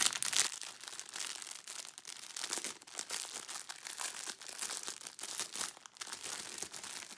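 Plastic packaging crinkling as a cellophane-wrapped bundle of self-seal baggies of diamond-painting drills is handled and turned over in the hands, loudest in the first half second.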